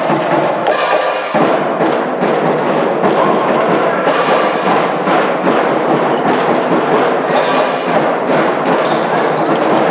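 Loud music with prominent drumming, full of sharp beats.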